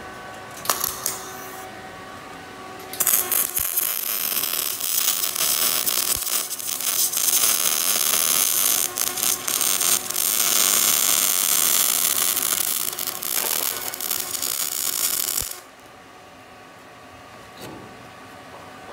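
Semi-automatic arc welder crackling as it welds steel floor plate onto a truck flatbed. A short burst comes about a second in, then one continuous run of about twelve seconds that stops suddenly.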